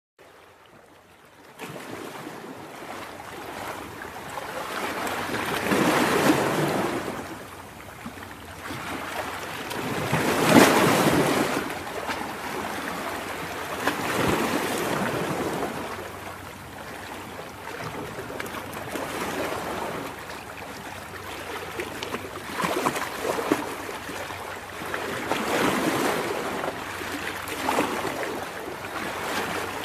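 Ocean surf: waves breaking and washing up on a shore, swelling and falling away every few seconds. It starts about a second and a half in.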